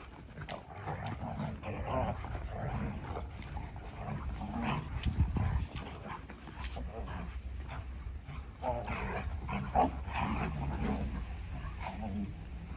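Several shepherd-husky mix dogs vocalising as they play-wrestle, with short yips and whines coming in clusters, the busiest stretch around nine to ten seconds in.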